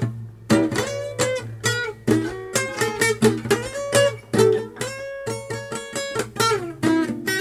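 Acoustic guitar strummed in a steady rhythm, its chords ringing between the strokes, with no singing.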